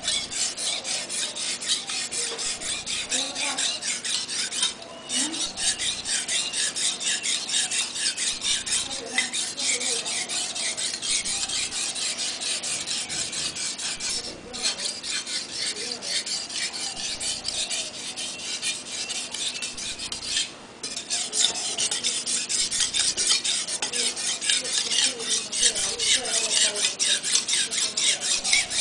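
Kitchen knife blade being stroked rapidly back and forth on a wet whetstone, a steady rhythmic rasping scrape. It breaks off briefly three times, about 5, 14 and 21 seconds in.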